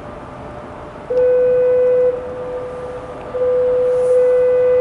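Bridge foghorns sounding in the fog: a steady, low, single-pitched horn tone. It swells into two loud blasts, the first about a second long starting a second in, the second longer and starting past halfway, over a fainter steady horn tone.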